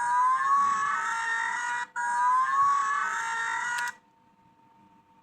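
Electronic alarm sounding in repeated blasts of about two seconds each, every blast a buzzy tone that swoops slightly upward at its start, stopping about four seconds in.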